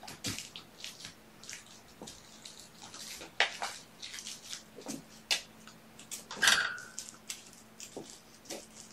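Kittens playing and moving about: a quick, irregular series of scrapes, rustles and light clatters, with a louder scrape and a short squeak about six and a half seconds in.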